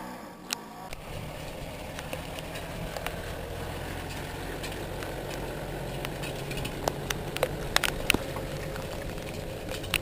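SUV engine running steadily at low revs, hitched to a caravan, with scattered sharp clicks and knocks over it that come more often in the second half.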